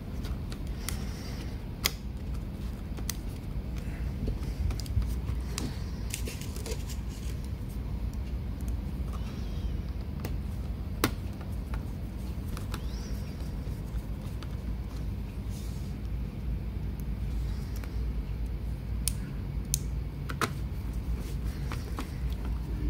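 Scattered small clicks and taps of laptop parts being handled and fitted back together by hand, over a steady low background hum.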